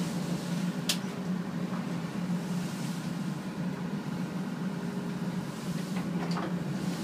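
A boat's engine drones steadily, heard from inside the wheelhouse, under a wash of noise from the rough sea. There is one sharp knock about a second in and a few faint rattles around six seconds, likely from the wheelhouse as the boat pitches.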